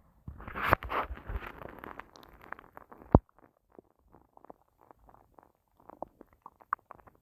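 An empty, hungry stomach growling and gurgling: a rumbling gurgle through the first two seconds, a single sharp click about three seconds in, then a run of small bubbly pops.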